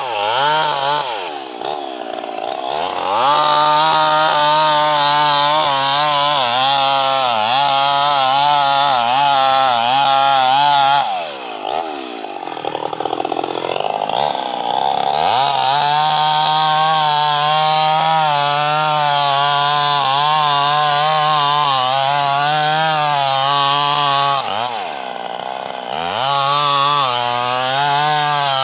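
Two-stroke chainsaw cutting into a mahogany trunk at high revs, its pitch wavering under load. The engine revs drop and climb back three times: about a second in, around twelve seconds in, and near the end.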